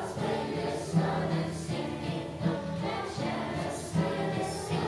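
Children's choir singing in unison, accompanied by an acoustic guitar.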